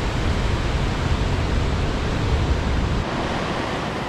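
Steady rush of a fast mountain river over rapids, mixed with wind buffeting the microphone. About three seconds in, the low wind rumble drops away, leaving the rushing water.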